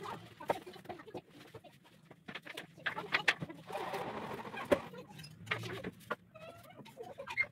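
Irregular wooden knocks and clatter from pine bunk-bed boards being handled and fitted into the frame, with a denser scraping stretch in the middle.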